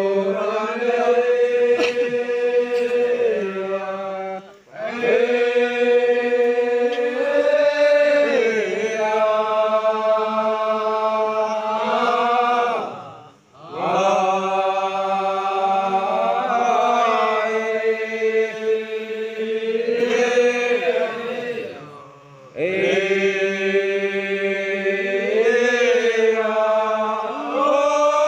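A group of Manggarai men chanting a ritual chant in unison: long held notes that slide slowly between pitches, sung in phrases about nine seconds long with short breaks between them.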